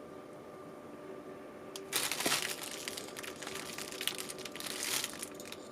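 Plastic packaging crinkling and rustling as it is handled, starting about two seconds in and lasting about three seconds, over a faint steady hum.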